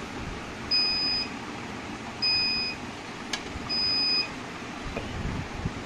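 Electronic alarm of a BC-3000 Plus hematology cell counter: three identical short, high beeps about a second and a half apart. It sounds while the analyzer's lyse-empty error is still showing, because the lyse reagent has run out.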